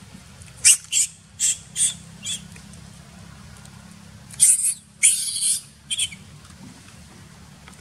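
Baby macaque giving a run of short, shrill squeals: five quick ones in the first couple of seconds, then a few longer ones from about four to six seconds in, the sound of a distressed infant.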